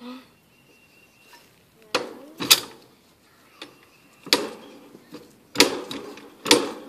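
A jack being worked with a long pipe handle to lift a tractor stuck in mud: six sharp metal clanks, roughly a second apart, each ringing briefly, as the jack ratchets up.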